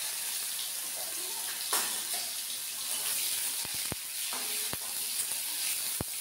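Soaked soya chunks sizzling in hot mustard oil in an aluminium kadai, stirred with a spatula that knocks lightly against the pan a few times in the second half.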